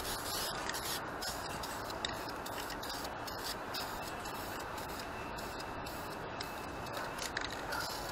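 Aerosol spray-paint can hissing in short bursts, over a steady background noise.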